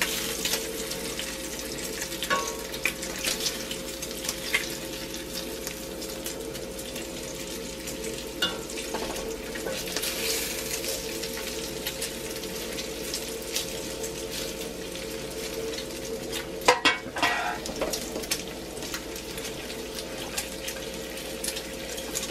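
Bacon strips sizzling and crackling in a nonstick skillet over a steady hum. Metal tongs click against the pan now and then as the strips are turned, with the loudest knocks coming about three-quarters of the way through.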